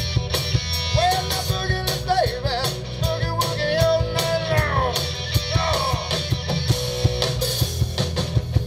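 Live rock band playing a boogie-rock song: electric bass, drums and cymbals, with a melody line that bends and slides up and down in pitch.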